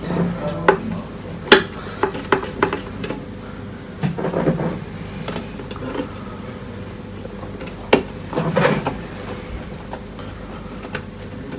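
Screwdriver clicking and scraping on the screws and aluminium frame of an LED floodlight as its front glass cover is screwed back down, with scattered knocks and clatter of handling the housing and tools. Two sharper clicks stand out, one near the start and one about two-thirds through.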